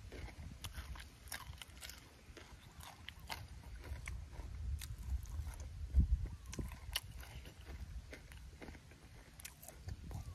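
Close-up chewing of food: a run of small wet clicks and crunches from the mouth, with a low thump about six seconds in.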